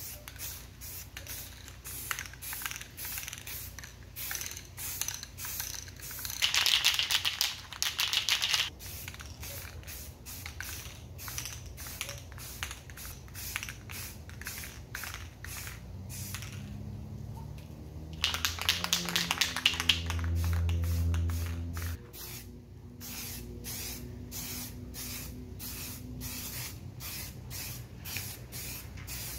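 Aerosol spray paint can hissing in two bursts of about two seconds each, one about a quarter of the way in and one near the middle, as wooden parts are given a coat of paint.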